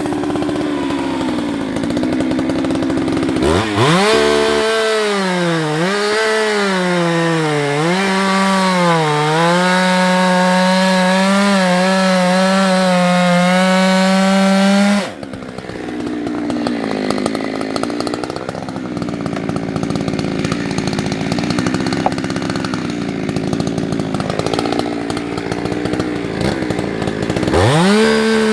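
Husqvarna 365 X-Torq two-stroke chainsaw cutting through beech wood. The engine revs up sharply a few seconds in, its pitch dipping and recovering as the chain bites, then holds a steady high note at full throttle. About halfway the sound drops abruptly to a lower, rougher running, and the saw revs up again near the end.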